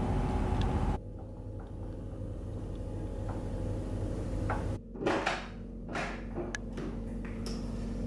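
Drum music that stops about a second in, then a steady low room hum. From about five seconds in, a door is opened, with a run of sharp latch clicks and knocks.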